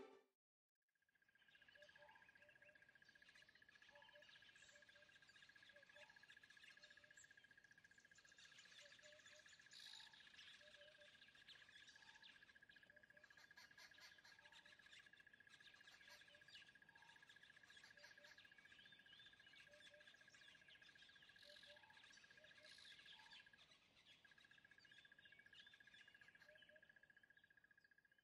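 Faint outdoor nature ambience of birds chirping. A steady high tone runs underneath, and a lower call repeats about every two seconds. It starts about a second in.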